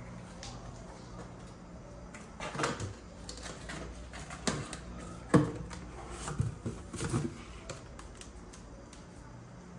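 Cardboard box being pawed and knocked about by cats: a few irregular scrapes, rustles and taps, the sharpest about five seconds in.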